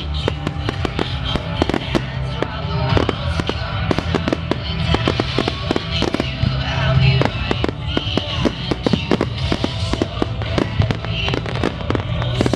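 Aerial fireworks bursting in a rapid, continuous string of bangs and crackles, with music playing along.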